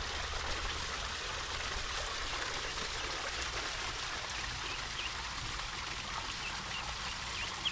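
Garden fountain trickling steadily into a pond, with a few faint short high chirps in the second half.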